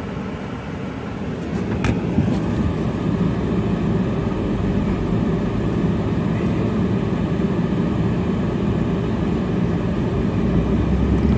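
Van driving along, steady engine and road noise heard from inside the cab, getting louder about a second and a half in as it picks up speed. A single sharp click about two seconds in.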